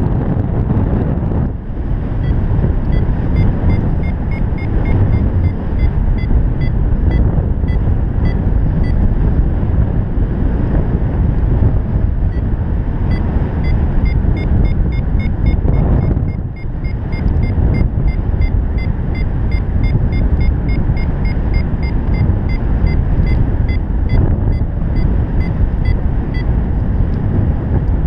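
Heavy wind noise on the camera microphone during a paraglider flight, a steady rumbling rush. A paragliding variometer beeps rapidly in a high tone over it, in two long runs with a gap of a few seconds between, the climb tone that signals rising air.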